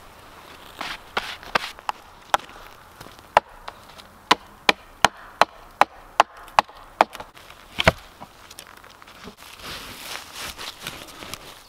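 Hammer blows on wood: a few scattered strikes, then a steady run of sharp blows about two or three a second, ending with a heavier, deeper thump.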